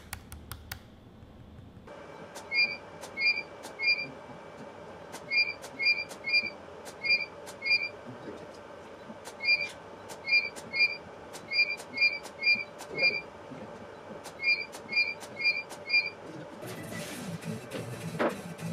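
Studio flash units being test-fired in quick runs of two to four. Each firing gives a sharp click followed by a short double electronic beep, about nineteen in all, over a steady faint hum.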